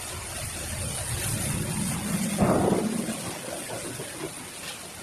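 Muddy flash-flood water rushing in a torrent, a steady roar of churning water with one louder surge about halfway through.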